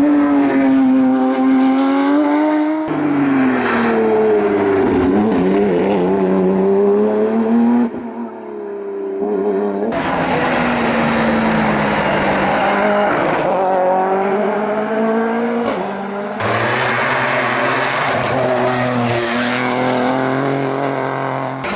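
Hillclimb race car engines at full throttle, the pitch climbing and dropping again and again through gear changes and lifts, in several short passes cut one after another.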